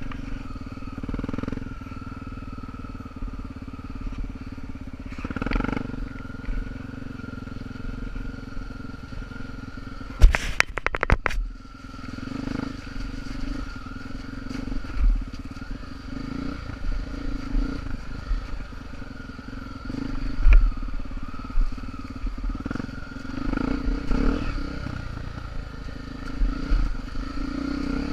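Honda Tornado 250 single-cylinder trail motorcycles running, the engine note swelling and easing every few seconds, with a burst of sharp knocks about ten seconds in.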